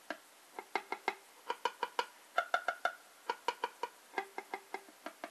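Strat-style electric guitar notes sounded by the fretting hand alone (hammer-ons), four notes per string up a chromatic run, with short pauses between strings. The notes are short and muted, because the other hand rests on the strings.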